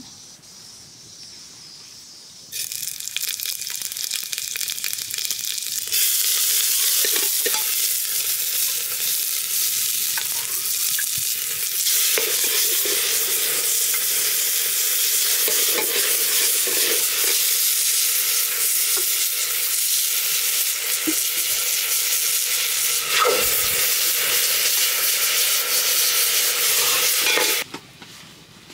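Food sizzling in a large aluminium pot on a wood fire, a steady hiss that starts about two and a half seconds in, grows louder a few seconds later and cuts off suddenly near the end, with a few light knocks of stirring.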